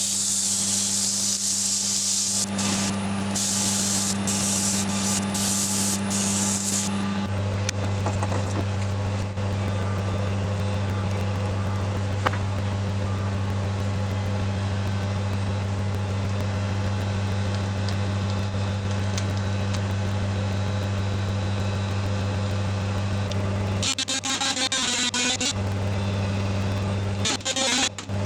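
Wood lathe running with a steady motor hum, while sandpaper held against the spinning wooden piece makes a hissing rasp for the first several seconds, with short breaks. The rasp comes back briefly twice near the end; otherwise only the hum is left.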